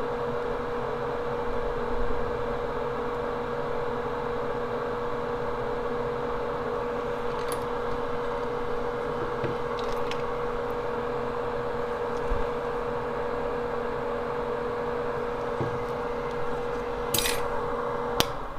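A small electric fan or blower running steadily with a hum, which cuts off just before the end. A few light clicks of metal tools sound over it, two of them close together near the end.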